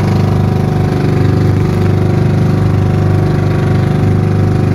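Motor of an outrigger fishing boat running steadily underway, a loud, even engine drone with a fast, regular pulsing beat.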